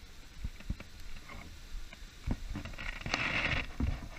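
Hands handling fishing line and a plastic swim bait: scattered small clicks and taps, with a short hiss about three seconds in.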